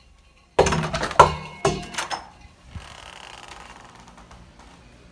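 A door being opened and pulled shut: a quick run of sharp clicks and knocks from the latch and door in the first couple of seconds, then a faint steady hiss.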